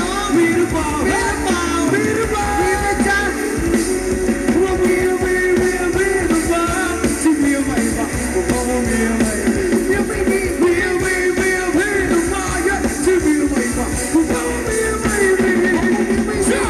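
Live band playing Thai ramwong dance music, with a voice singing over the band.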